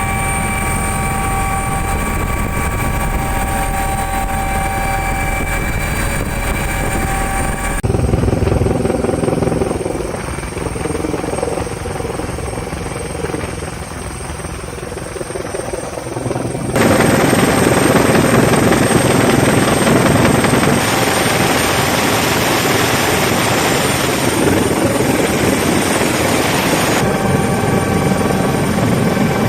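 Navy helicopter running: a steady turbine whine over dense rotor and engine noise. The sound shifts abruptly three times, as between different recordings of it.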